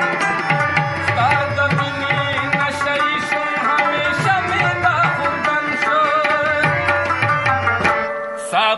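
Pashto devotional music: harmonium holding sustained chords under plucked rabab notes, with a steady tabla rhythm. The drum stops about eight seconds in, with a brief dip in the music.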